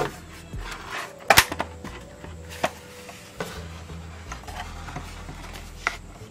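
Hard plastic radio casing clacking and knocking as it is turned over in the hands and pried apart: a handful of sharp clicks, the loudest a quick double knock about a second and a half in.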